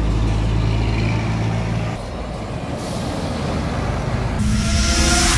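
Large diesel coach buses driving past, starting with a Scania K410IB whose engine gives a steady deep drone, then road and tyre noise from another coach, cut together in short pieces. A hiss comes in near the end.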